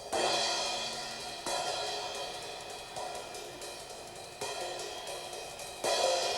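Band music with a drum kit: cymbal crashes land about every second and a half and ring out over a sustained band sound.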